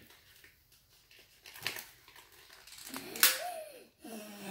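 Foil blind-bag wrapper crinkling as it is handled and worked open, with sharp crackles about one and a half seconds in and a louder one about three seconds in.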